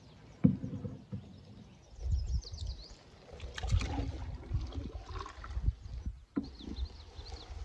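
Canoe paddling on calm water: a sharp knock of the paddle against the canoe about half a second in, then paddle strokes with low thumps and splashing. Small birds chirp briefly, high and faint, twice.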